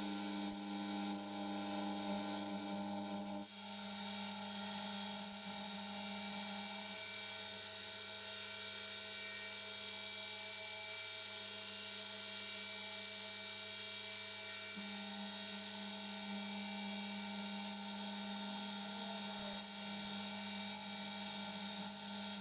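Milling machine running steadily, its motor giving an even hum, as a small end mill widens a slot in a steel shaft. The hum changes slightly a few seconds in and again midway.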